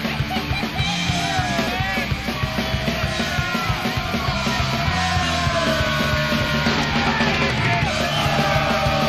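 Rock music soundtrack with a steady driving beat and a singing voice that comes in about a second in.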